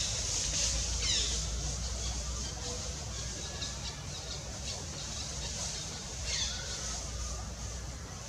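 Macaque squeals: a few short high-pitched calls that slide down in pitch, twice near the start and again past six seconds in, over a steady high hiss.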